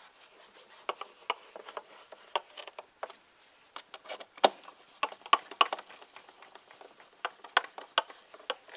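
Screwdriver turning the screws of a plastic air filter housing cover down snug, an irregular run of small clicks and scrapes, with a few sharper clicks about halfway through and near the end.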